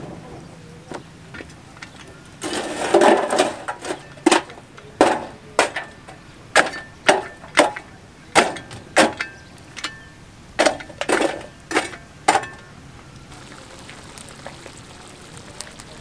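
A series of about fifteen sharp knocks or cracks at an uneven pace, a bit over one a second, starting a few seconds in and stopping about three seconds before the end.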